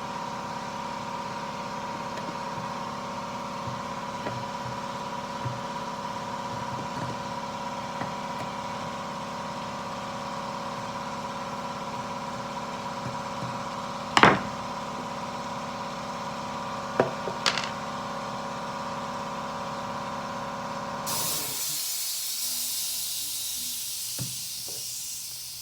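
Briggs and Stratton push mower engine running at a steady speed, with a few sharp clicks. Near the end it gives way abruptly to a steady hiss.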